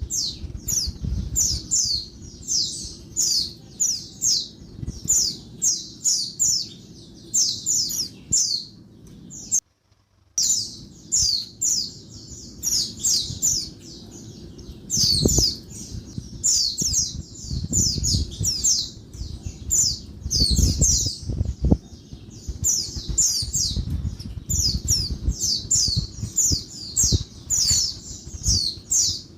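Female white-eye (pleci) calling noisily: a fast, continuous series of short, high chirps, two or three a second, broken by a brief gap about ten seconds in. A low rumbling noise runs underneath, heaviest in the second half.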